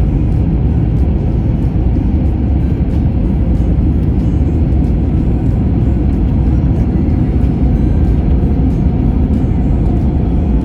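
Jet airliner cabin noise during landing: a steady, loud, low rumble of engines and airflow with no separate bumps standing out.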